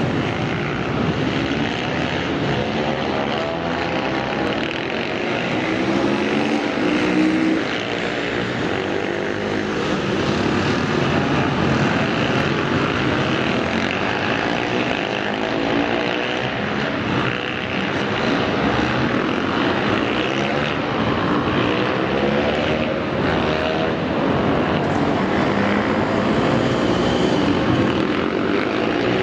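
Several supermoto motorcycle engines at a distance, revving up and falling back again and again, their sounds overlapping.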